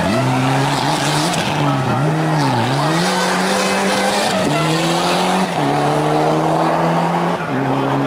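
Mitsubishi Lancer Evo IX rally car's turbocharged four-cylinder engine pulling hard through a corner, its revs dipping briefly about two and a half seconds in, jumping up after about four seconds, then dropping back in steps, with tyre squeal over it.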